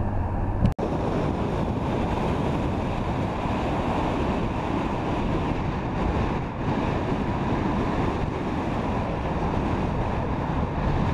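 Steady road and wind noise of a moving car heard from inside, with a brief dropout a little under a second in.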